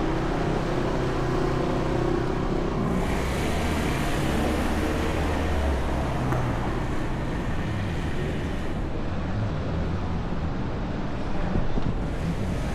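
City street traffic: a steady low rumble of cars on the road, with one vehicle's passing hiss swelling and fading over several seconds in the middle.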